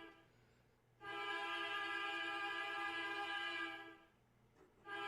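Background music: a sustained, steady chord that cuts out twice for about a second.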